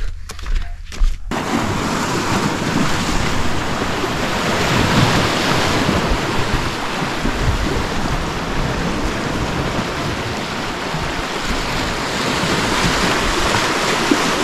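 Waves washing against a rocky lakeshore, mixed with wind blowing across the microphone: a steady rushing noise that comes in about a second in.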